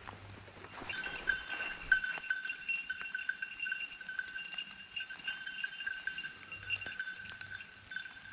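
A hunting dog's bell ringing steadily, with a slight pulsing jingle, as the dog moves through the undergrowth. It starts about a second in.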